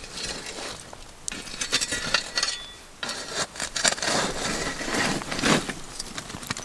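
A metal shovel scraping and digging through campfire ash and coals to uncover a damper buried in the ashes: a run of irregular scrapes, busiest and loudest about four to five seconds in.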